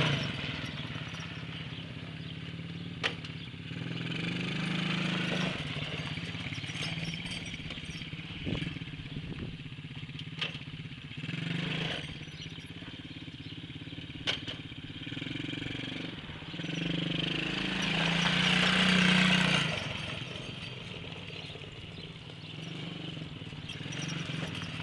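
Engine of a 110 cc quad running as it is ridden, its pitch and loudness rising and falling, loudest about three quarters of the way through, with a few sharp clicks along the way.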